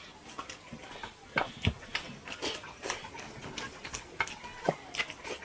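Eating by hand: irregular soft, wet clicks and smacks of fingers mixing curry and rice on plates, and of chewing.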